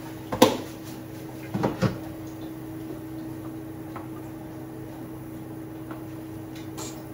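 Sharp plastic knocks from a seasoning container being handled and closed, the loudest about half a second in and two more near two seconds, then a wooden spoon stirring quietly in a metal saucepan over a steady low hum.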